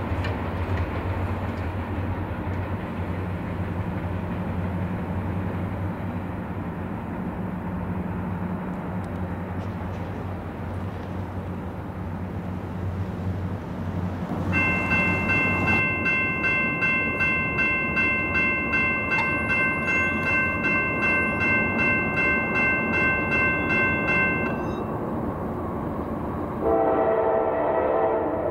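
Low rumble of a freight train rolling away. About halfway through, a railroad crossing bell starts ringing at about two dings a second for some ten seconds, then stops. Near the end, an approaching locomotive's horn sounds, loud, with a chord of several notes.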